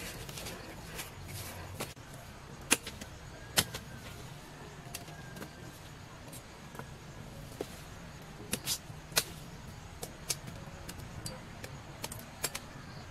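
Machete chopping cassava roots: irregular sharp knocks, two early on and a quicker cluster of several in the second half.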